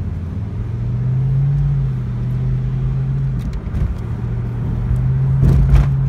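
Ford Mustang convertible driving with the top down, heard from inside the car: a steady engine hum over road rumble. The hum rises about a second in, drops a little after three seconds and climbs again. A couple of brief knocks come near the end.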